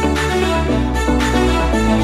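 Instrumental background music with held chords over a deep bass line.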